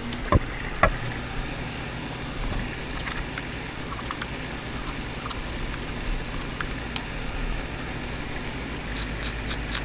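A steady mechanical hum, with a few sharp taps in the first second and a quick run of light clicks near the end.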